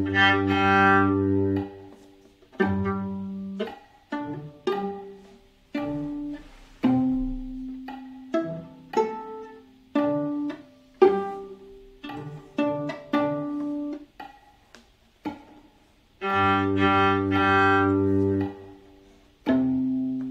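Viola playing a slow tango line at half tempo: long bowed notes near the start and again about 16 seconds in, with shorter bowed and plucked notes about one a second between them, and a lower string voice sounding under the long notes.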